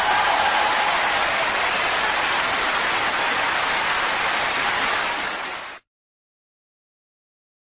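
Steady rushing noise with no tone or beat in it, which stops abruptly almost six seconds in, leaving total silence.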